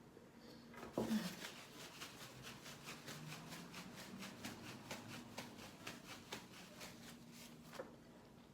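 Close-up chewing and mouth sounds from someone eating chicken nuggets fast: a brief vocal noise about a second in, then a steady run of quick moist clicks, about four or five a second, that dies away near the end.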